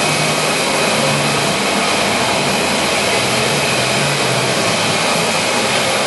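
Monarch Model 62 heavy-duty engine lathe, driven by its 20 HP main motor, running steadily with the spindle turning at 42 RPM: an even, unbroken machine whir.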